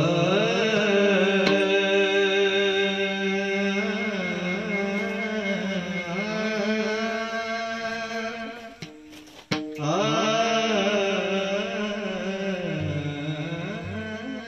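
Male voice singing a long, ornamented melodic line in raga Bhairavi, closing a Marathi bhajan, over a steady held drone. The line drops away briefly about nine seconds in and resumes.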